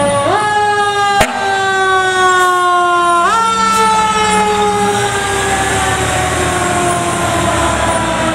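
A fire engine's mechanical siren is spun up twice, about a third of a second in and again about three seconds in. Each time it jumps quickly in pitch and then slowly winds down. A sharp click a little over a second in is the loudest single sound, and the pumper's engine rumbles as it drives past.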